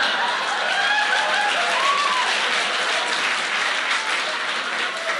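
Live audience applauding, with a few voices calling out over the clapping in the first two seconds.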